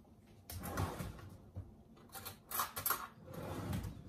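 Cutlery rattling and clinking in three short spells as a fork is picked out, with light rustling in between.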